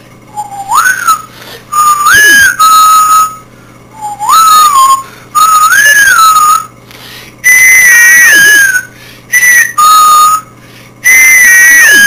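A person whistling a tune loudly in short phrases. Each phrase swoops up and then holds, the phrase is repeated, and the last few phrases start higher and slide down.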